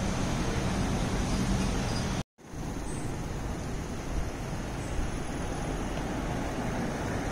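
Steady city street noise with distant traffic, broken by a brief total dropout a little over two seconds in.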